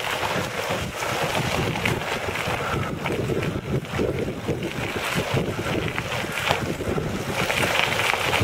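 Recumbent quad cycle's tyres rolling over a loose gravel road: a steady crunching crackle of many small ticks, with wind rushing on the microphone.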